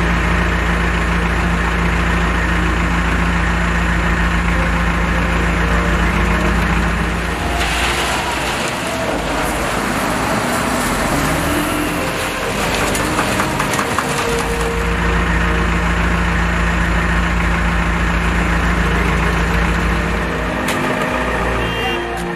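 The engine of a VMP Bull SLM 4000 self-loading concrete mixer running with a steady low hum. From about 7 to 14 seconds in, it gives way to a harsher, noisier spell before the steady hum returns.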